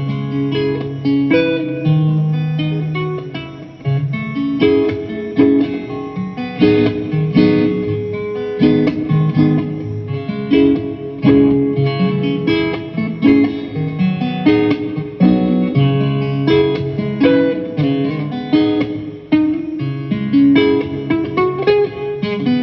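Guitar music: plucked and strummed chords and single notes that ring into one another at an easy, unhurried pace.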